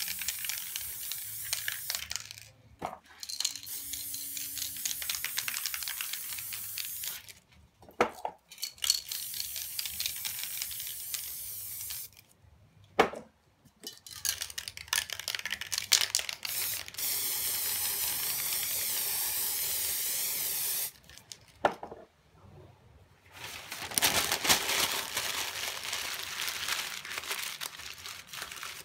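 Aerosol spray paint cans hissing in repeated bursts of a few seconds each, with short pauses and a few sharp clicks between bursts.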